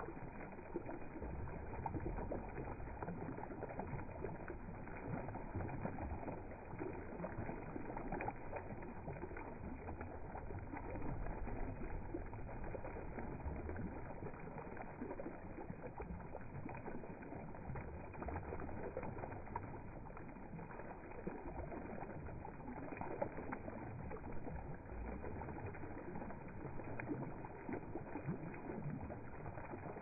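Water spilling and dripping off the scalloped rim of a fountain's upper bowl and splashing below, a steady, even patter.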